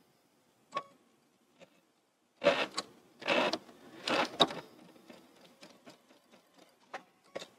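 Sewing machine stitching a quarter-inch double-fold hem in three short bursts about two and a half to four and a half seconds in. A few faint clicks come before and after.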